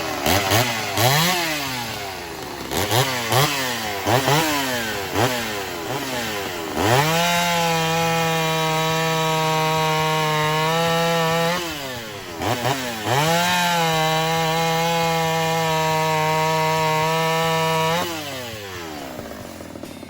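Ported Homelite Super XL-130 two-stroke chainsaw, its ignition timing advanced, blipped through several quick revs and then held at full throttle twice, for about five seconds each, as it cuts into wood. Between and after the holds the engine drops back toward idle.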